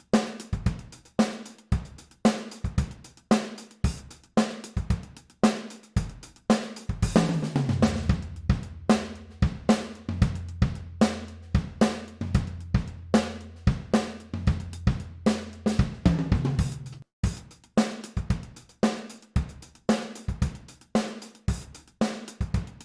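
Sampled acoustic drum kit from the Addictive Drums virtual instrument playing a steady groove of kick, snare, hi-hat and cymbals, dry, with no effects or compression. A low sustained boom sits under the hits for several seconds in the middle.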